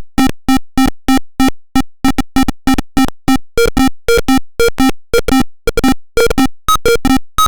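Background music: a bouncy synthesizer melody of short plucked notes, about three a second, each dying away quickly.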